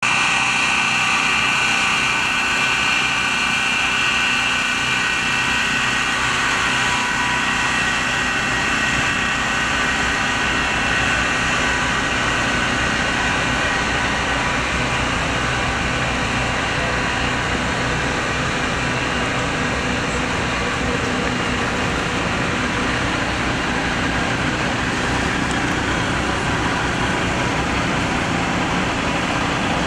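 Construction crane's engine running steadily while it lifts a heavy load, with a high whine over it that is strongest in the first few seconds.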